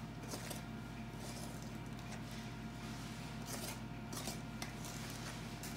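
Faint scrapes and light taps on a stainless steel mixing bowl as thick brownie batter is scooped out of it into a baking pan, over a steady low hum.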